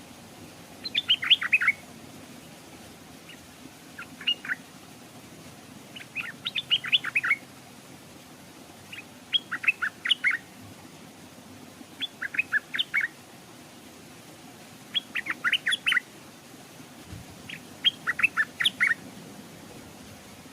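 Stripe-throated bulbul singing: about seven short phrases of quick, clear notes, one every two to three seconds.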